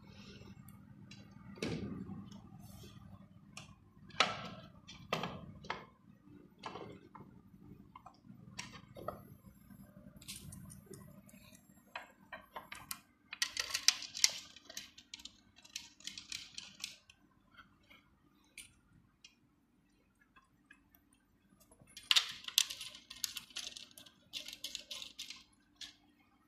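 Bar stool parts and tools being handled during assembly: scattered knocks and clicks, then two runs of rapid clicking, one around the middle and one near the end.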